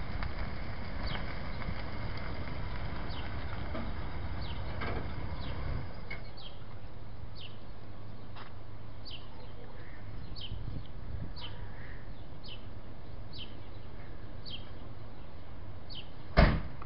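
Birds chirping with short falling calls every second or so over a low steady rumble. A single loud knock comes near the end.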